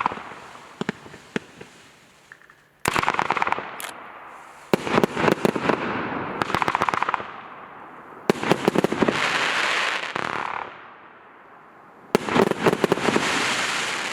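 A 196-shot compound firework cake firing in rapid volleys of shots, about four separate flurries a few seconds apart, one of them running on into a long hissing crackle.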